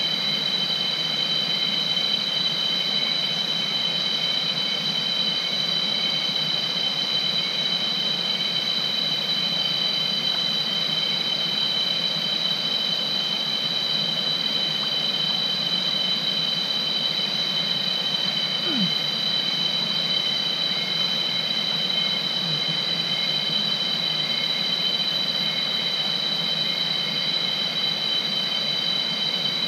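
Cicadas droning steadily, a high, unbroken whine in two close pitches, over an even hiss.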